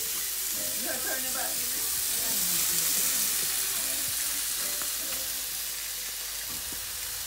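Bacon sizzling in a frying pan: a steady frying hiss that swells a little about two to three seconds in.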